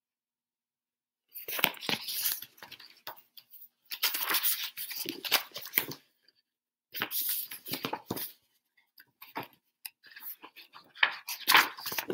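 Paper pages of a picture book being turned and handled close to the microphone: repeated bursts of rustling and crinkling, starting about a second and a half in.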